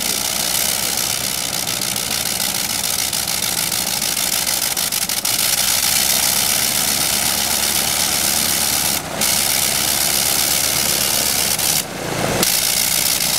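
Nine-cylinder Le Rhône rotary aircraft engine running steadily at idle, with two short dips in its sound in the last few seconds.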